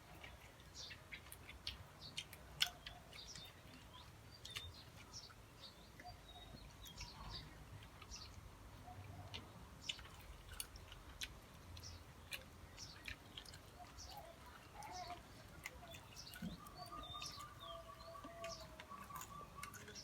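Faint chewing and mouth clicks of someone eating, with small birds chirping in the background and a short trilling call near the end.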